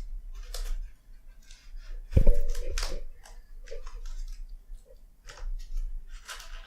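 Keyboard box being opened and handled: scattered crinkling and clicking of cardboard and packaging, with one loud thump about two seconds in.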